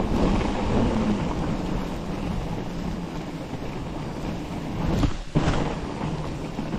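Wind rushing over the microphone while a fat bike rolls over groomed snow, with a brief jolt about five seconds in.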